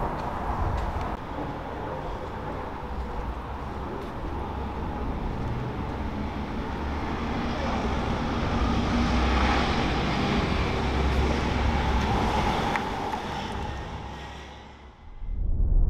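Street ambience with traffic noise and a low rumble, swelling about halfway through, fading near the end, then a brief loud swell before it cuts off.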